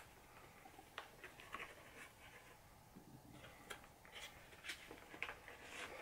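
Faint, scattered light clicks and taps of a paper-pulp egg carton's lid being opened by hand, otherwise near silence.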